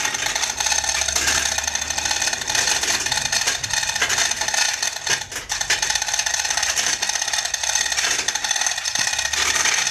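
Continuous metallic rattling and scraping, a dense run of small clicks without a break, as the truck's diesel engine is worked free while hanging on its lifting chain.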